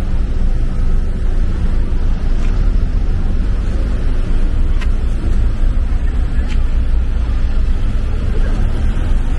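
Steady low rumble of street traffic, with cars running nearby and a few faint clicks.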